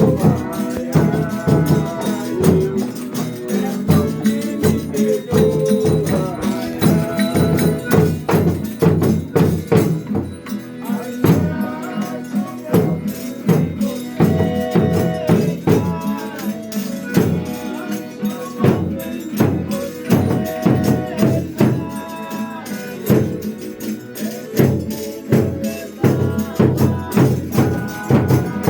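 Brazilian Folia de Reis folk music: a tambourine keeps a steady, driving beat under melodic instruments.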